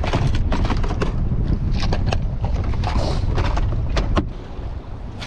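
Wind rumbling on the microphone aboard a small boat at sea, with a run of irregular sharp knocks and clatter from handling on board. It goes somewhat quieter after about four seconds.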